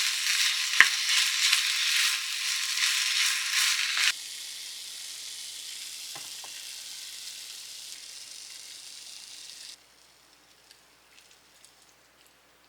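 Food sizzling and crackling in a hot frying pan, with a sharp tap on the pan about a second in. About four seconds in it drops suddenly to a quieter steady sizzle, which cuts off near the end, leaving only faint small clicks.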